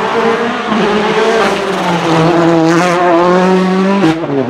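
Volkswagen Polo R WRC rally car's 1.6-litre turbocharged four-cylinder engine at high revs under hard acceleration. The pitch holds high with brief dips, and there is a sudden change about four seconds in.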